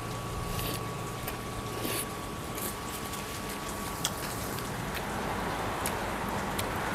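Eating at a shabu hotpot table: a few faint clicks of utensils against a steady background hum.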